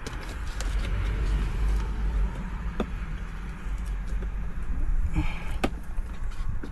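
Plastic interior trim being handled and worked loose, with scattered sharp clicks and knocks over a low rumble.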